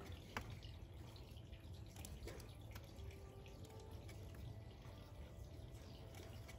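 Bonsai scissors snipping shoots on a Chinese elm: several faint, sharp clicks spaced irregularly over a low, steady background hum.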